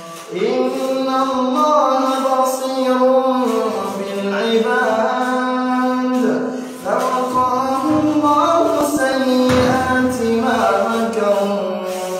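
A man reciting the Quran in the melodic, drawn-out tajweed style, holding long notes with ornamented turns in pitch. There is a short break for breath just past halfway.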